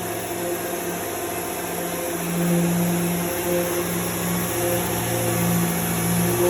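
Dual-action (DA) sander with 600-grit paper running on guide-coated primer surfacer: a steady whir with a humming tone that wavers in pitch and strength.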